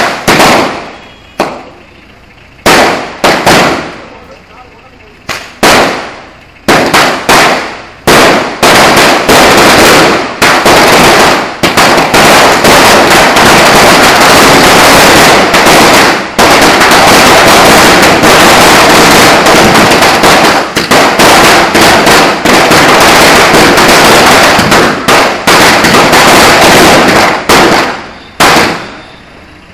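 A long string of firecrackers going off. Scattered single bangs come first, then about eight seconds in a dense, unbroken run of rapid bangs lasts some twenty seconds, thinning to a few last bangs near the end.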